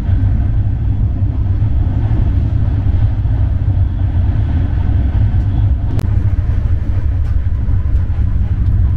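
Tejas Rajdhani Express train running: a loud, steady low rumble with a single sharp click about six seconds in.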